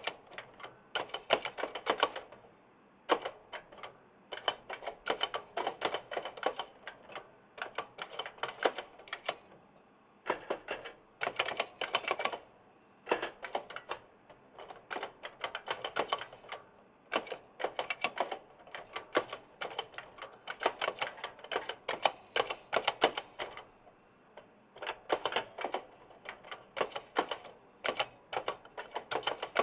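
Typing on an oversized mechanical keyboard with Kailh blue clicky switches: fast runs of sharp key clicks, with a few short pauses. A thin metallic ring from the key springs carries under the clicks.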